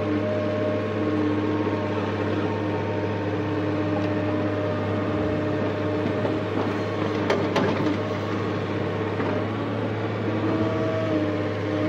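JCB JS175 excavator's diesel engine running steadily under load, heard from the cab, with a pitched whine that comes and goes as the arm works. A brief clatter about seven seconds in as the bucket's soil drops into the truck body.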